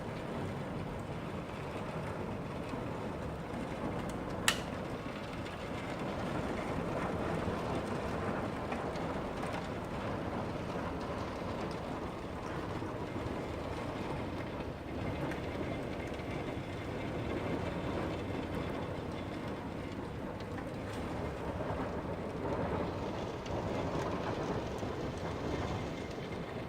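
Steady rain falling, a continuous even hiss and rumble that swells and eases slightly, with a single sharp click about four and a half seconds in.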